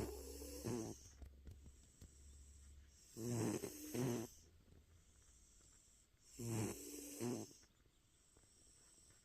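Domestic cat snoring in its sleep: three snores about three seconds apart, each lasting about a second.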